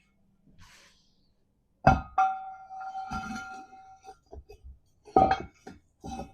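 Steel weight plates and a homemade steel weight pin clanking together. A hard clank about two seconds in rings on for about two seconds, and a few more clanks and knocks follow near the end.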